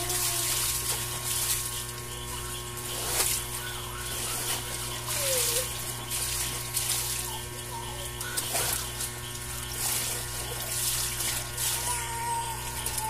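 Water splashing and sloshing in irregular bursts as laundry is rinsed by hand in a tub, over a steady hum.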